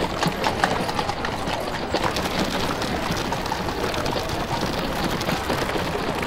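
Horse-drawn street traffic: horses' hooves clip-clopping and wheels rattling over paving in a steady clatter of busy street noise.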